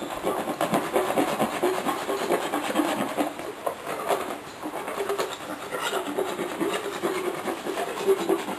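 Hand-held equine dental rasp (float) filing a horse's teeth in quick back-and-forth scraping strokes, rounding off the tooth edges.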